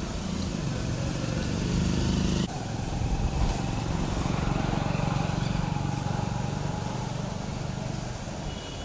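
Motorcycle engine running. After an abrupt cut about two and a half seconds in, a steady engine hum goes on.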